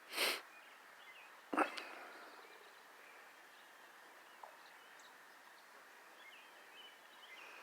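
Quiet outdoor ambience with faint bird chirps near the end. There is a short breathy puff at the start and a brief sharp burst about a second and a half in.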